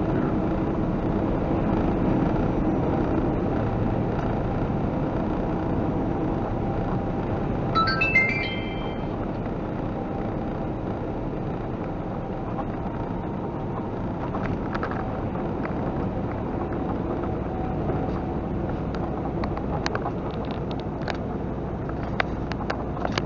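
Steady engine and road drone inside a moving semi-truck's cab, with music in the background. A short rising electronic chime sounds about eight seconds in, and light clicks and rattles come in the second half.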